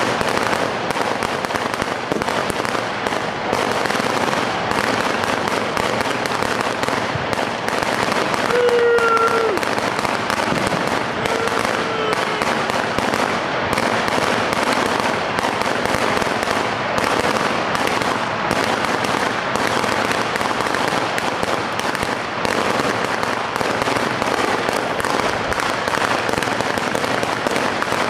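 A Zena 500-shot firecracker mat going off, its heavy crackers firing one after another in a rapid, unbroken string of bangs.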